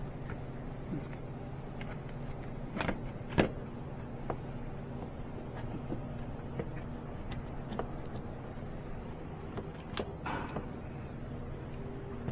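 Hand tools and metal parts clicking and knocking during work on a car's starter motor, with one sharp knock about three seconds in, over a steady hum.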